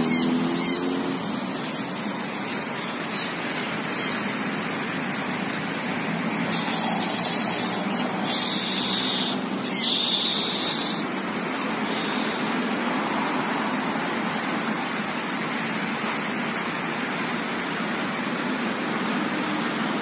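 Harsh, high-pitched screeches of free-flying sun conures overhead: a few short calls in the first seconds, then three loud screeches of about a second each between roughly six and eleven seconds in, over a steady background noise.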